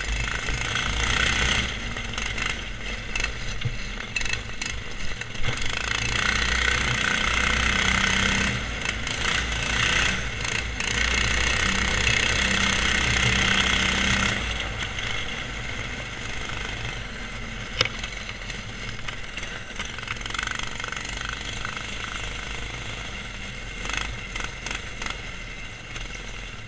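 Subaru EX17 single-cylinder go-kart engine running under throttle as the kart is driven. About halfway through it drops back and runs quieter as the throttle eases.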